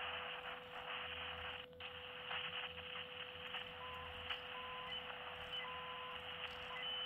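ATS-120D shortwave receiver's speaker hissing with band noise, a steady low whistle running underneath and three short higher beeps between about four and six seconds in. There is no clear signal on the frequency, only static.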